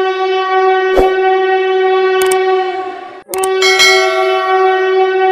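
Train horn sound: a single steady, loud horn note held for about three seconds, cut off briefly, then sounded again at once. A few sharp clicks fall over it.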